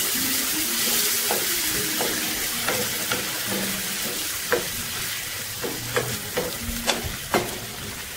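Tomato purée and fried onions sizzling in a frying pan as a wooden spatula stirs them. The spatula knocks and scrapes against the pan, and the knocks come more often and louder in the second half.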